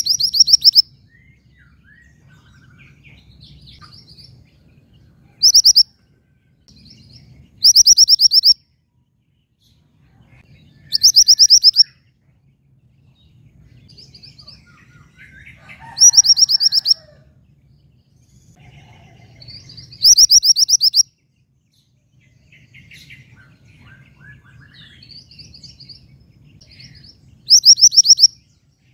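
Female mantenan gunung songbird calling: about seven loud bursts of rapid, high repeated notes, each under a second long and a few seconds apart, with softer twittering in between.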